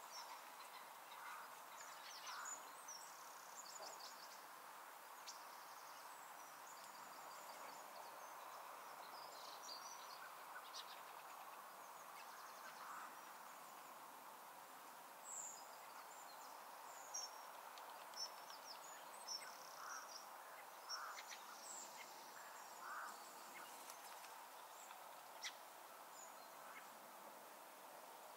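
Faint open-countryside ambience: a steady soft hiss with scattered short, high bird chirps and calls, coming more often in the second half.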